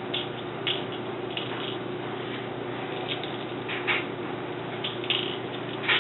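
A few steel BBs being dropped one at a time into a BB pistol magazine's loading port, making small, irregular clicks and taps.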